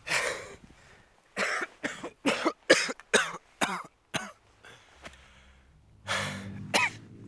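A wounded woman coughing: one cough, then a quick run of about nine short coughs, and near the end a long, breathy exhale with a brief groan.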